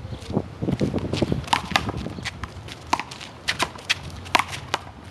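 Irregular sharp taps and slaps on a handball court: players' sneakers on the hard court and the ball being struck, a dozen or so quick hits. Wind rumbles on the microphone in the first second or so.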